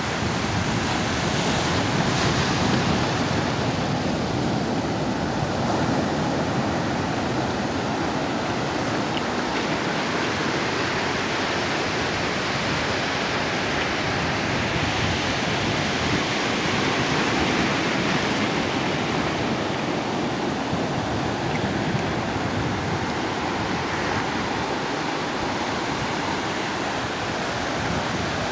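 Sea waves breaking and washing up a sandy beach among boulders: a steady rush of surf.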